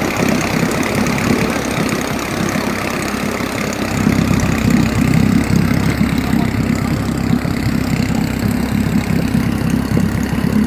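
Vintage green Johnson outboard motor idling steadily on a boat tied at a dock, getting a little louder about four seconds in.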